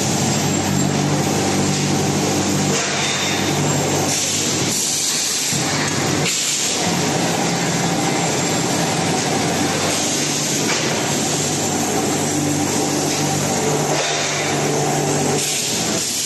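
Steady, loud running of steel pipe mill machinery: a constant low hum of several steady tones under a dense hiss, easing briefly a few times.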